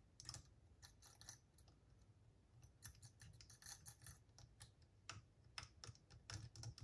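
Faint, scattered clicks and light scrapes of small parts being handled while the take-up spool assembly of a cassette deck's tape transport is taken apart or refitted, busiest around the middle and near the end.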